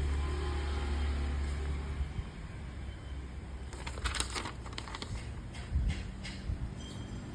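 Makita 13 mm electric drill motor running with a steady low hum that stops about two seconds in, followed by a few light clicks and knocks of handling.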